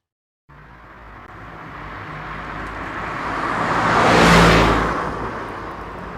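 A car passing by: engine and road noise grow steadily louder, peak about four seconds in, then fade, and the sound cuts off abruptly at the end.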